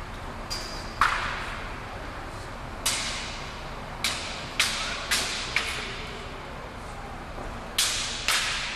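Spear and broadsword striking each other in a choreographed two-person weapons set: sharp clacks with a short ring. There is one strike, then a quick run of four in the middle, and a pair near the end.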